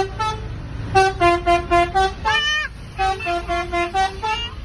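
Telolet horn playing its tune: a rapid run of short musical horn notes, about four a second, in two phrases. A short swooping tone comes between them about two seconds in, over a low traffic rumble.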